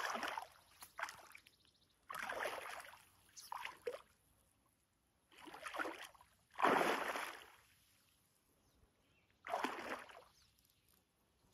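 Water splashing and sloshing in six short swishes, one every couple of seconds, with quiet between them.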